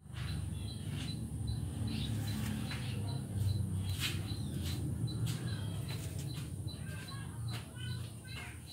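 A low steady rumble on the phone's microphone with scattered clicks, and small birds chirping a few times near the end.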